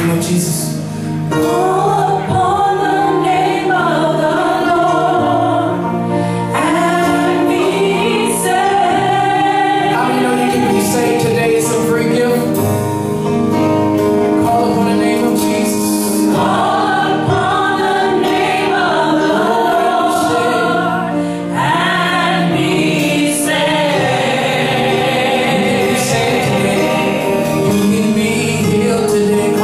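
Live gospel worship music: a choir singing over sustained instrumental chords.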